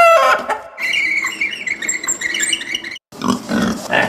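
Recorded pig sounds: pig grunting and oinking, cut by a brief gap about three seconds in and then a run of short grunts.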